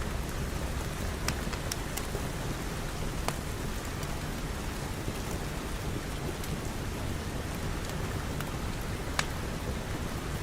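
Steady rain, with a low rumble underneath and a few sharp isolated ticks.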